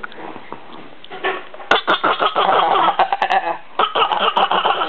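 Silly vocal noises: raspy, rapidly pulsing sounds in two loud stretches, the first starting about a second and a half in, the second after a short break near four seconds.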